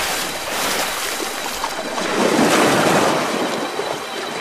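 Rushing surf ambience: waves swelling up about halfway through and easing off again.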